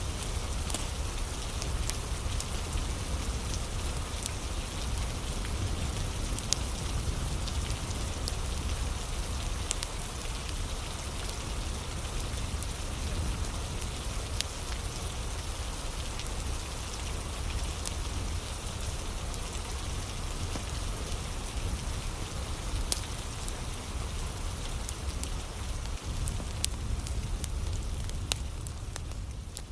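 Steady rain falling, with a low rumble underneath and scattered sharp ticks and clicks throughout.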